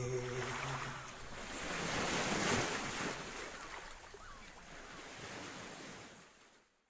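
A rushing noise swells for about two and a half seconds, then slowly fades out to silence, as the song's last held chord dies away.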